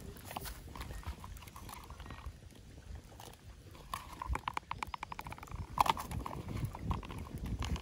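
Chunks of potato and carrot dropped by hand into a pot of water heating over a wood fire, with a loud plop into the water just before six seconds in. Shortly before it comes a rapid, even run of clicks, about ten a second, lasting about a second and a half.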